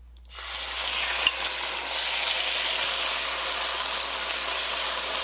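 Marinated chicken strips hitting hot oil in a wok and sizzling, the hiss starting about a third of a second in, building, then holding steady as the pieces are stirred with a wooden spatula. One light knock sounds about a second in.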